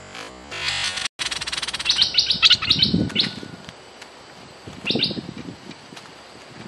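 Background music cuts off about a second in, then a bulbul (merbah lekir) calls: a quick run of bright chirping notes about two seconds in, and a short second call near five seconds.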